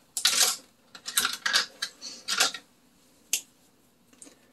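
Small makeup items clattering and rustling as they are handled and sorted, in a few short bursts, with one sharp click about three seconds in.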